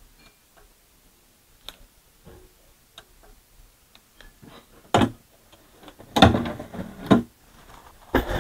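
A Bryston BCD-1 CD player being tested and handled for a disc it does not read: scattered light clicks and ticks, then a sharp knock about five seconds in, and a few heavier clunks a second later.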